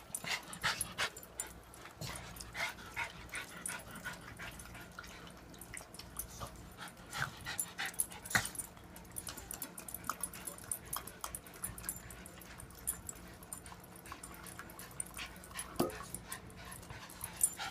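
Dogs chasing each other in play: many quick, scattered footfalls and clicks, with a few short whines and one brief yelp near the end.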